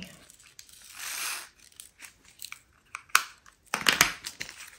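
Small plastic diamond-painting drills and their plastic bags and containers being handled: a brief crinkly rustle about a second in, then scattered sharp clicks and rattles, with a cluster near the end.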